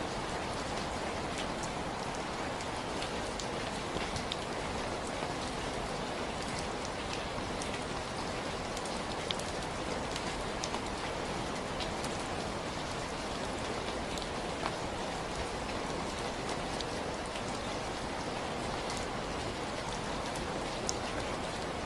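Steady rain falling, an even hiss of rainfall with scattered individual drops ticking sharply on a surface.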